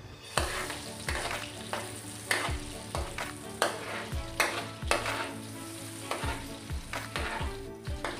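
A metal ladle stirring and scraping against a steel wok, knocking about once or twice a second, while margarine melts and sizzles in the hot pan.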